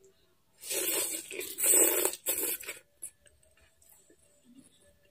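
A person slurping soft noodles into the mouth in three quick airy pulls about a second in, then faint chewing.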